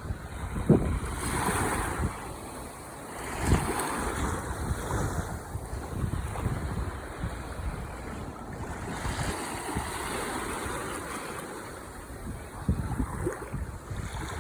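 Ocean waves breaking and washing up the shore, swelling and ebbing every few seconds, with wind rumbling on the microphone.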